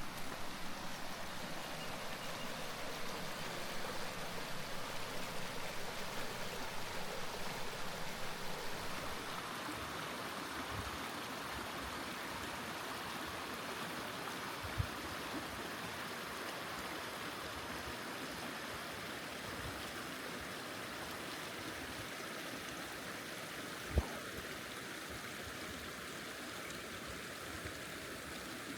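A stream running steadily, with a sharp knock about two-thirds of the way in.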